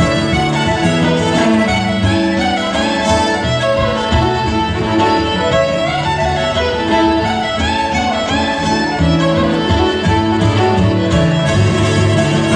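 Live Irish traditional music: a fiddle leading a tune together with a button accordion and a strummed acoustic guitar.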